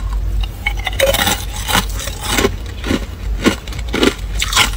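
Hard ice being bitten and chewed, a run of sharp, crackly crunches about two a second, starting about a second in.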